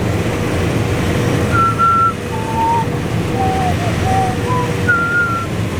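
Combine harvester running steadily with the corn head down, taking in corn. Over the machine noise comes a run of about eight short high notes at changing pitches, from about a second and a half in to near the end.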